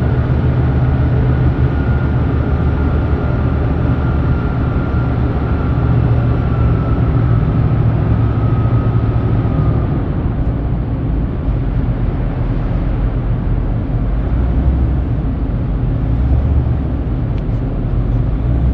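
Steady low rumble of heavy machinery, with a faint whine slowly falling in pitch over the first ten seconds.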